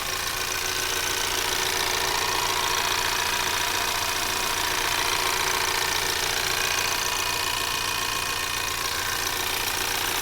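Ford Maverick's 2.0L EcoBoost turbocharged four-cylinder idling steadily, heard up close under the hood: a fast, even ticking from the valvetrain and high-pressure direct-injection fuel pump over the engine hum. These are normal sounds for this engine.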